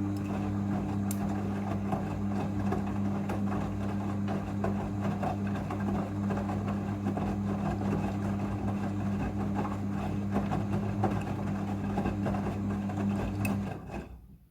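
Front-loading washing machine running in its rinse cycle: a steady electric motor or pump hum over the rush and slosh of water. It cuts off abruptly near the end.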